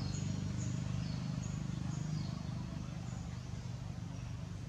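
Small birds chirping, short high falling notes repeated every half second or so, over a steady low drone that eases slightly about halfway through.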